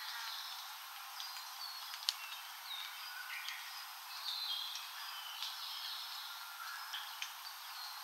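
Several wild forest birds giving short chirps and whistled notes over a steady background hiss of forest ambience. A single sharp click sounds about two seconds in.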